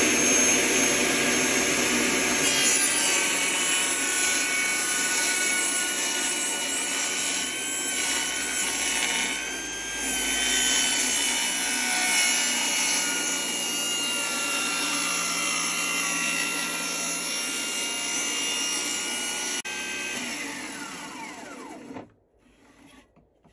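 Bosch GTS 18V-216 cordless table saw running and ripping a length of CLS softwood along its fence: a steady motor whine under the cutting noise of the blade. Near the end the saw is switched off and its whine falls away as the blade spins down.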